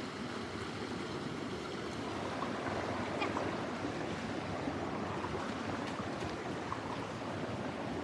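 Steady rush of a creek's flowing water.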